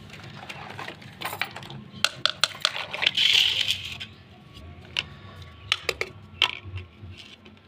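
Small plastic toy kitchen pieces, a toy plate and toy banana, clicking and clattering as they are set down on a stone floor, with a burst of rustling noise about three seconds in, the loudest sound here.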